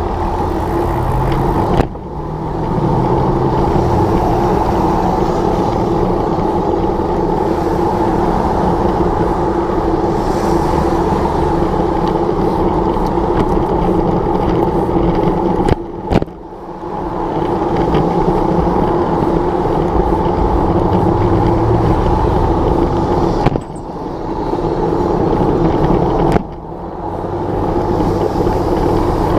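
Steady noise of a car running close by on the road, with road and wind noise. The sound drops out sharply four times and builds back up each time.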